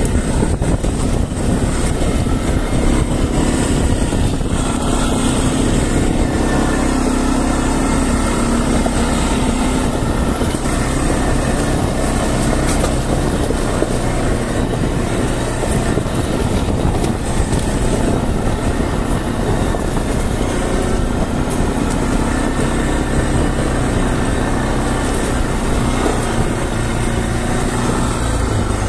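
Quad bike (ATV) engine running steadily under way, heard from on board.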